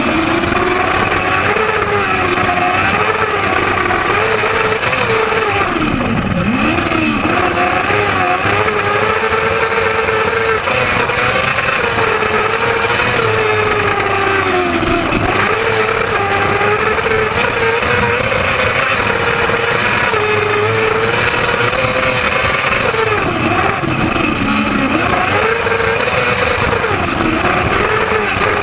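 Kart cross 600's 600 cc motorcycle engine at racing revs, heard from the cockpit, its pitch rising and falling continuously as it is driven hard. Three times, about 6, 15 and 24 seconds in, the revs drop sharply and climb back.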